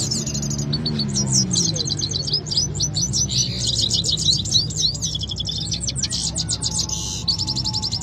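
Caged canaries singing against each other in a song contest. The song is a run of fast, high-pitched trills and rolls of rapidly repeated notes, broken by short pauses, over a low murmur of men's voices.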